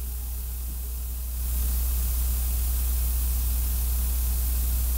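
Steady low electrical hum with hiss and no speech. The hiss gets louder about a second and a half in.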